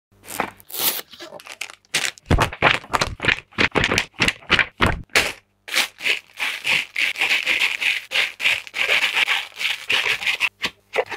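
A cardboard box being opened and bagged building bricks handled inside it. Sharp clicks and knocks come first, then from about six seconds in a long dense rustle of plastic bags being moved and lifted out, their loose pieces rattling.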